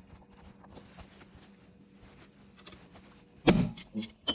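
A low steady hum with faint ticking, then one heavy thump about three and a half seconds in, followed by two lighter knocks.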